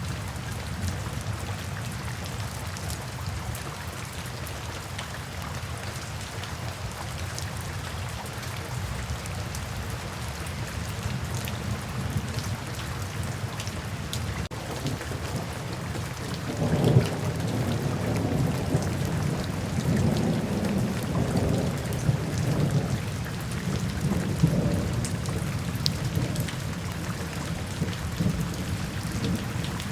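Steady rain falling, with a long low rumble of thunder rolling in about halfway through, swelling several times before easing off.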